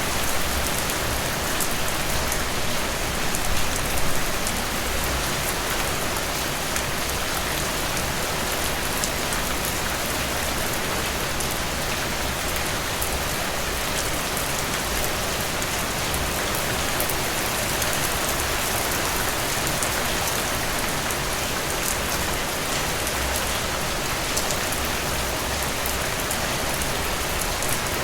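Steady rain falling, a dense even hiss of drops hitting a surface with fine individual drop ticks and no thunder.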